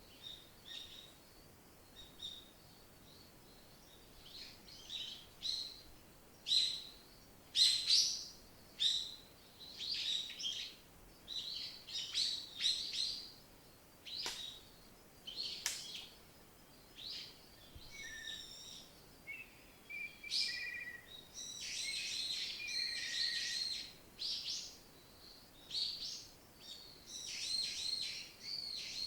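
Wild songbirds chirping and singing: short, separate calls and trills, a few at first and then many, overlapping most densely a little after the middle, over a faint steady background hiss.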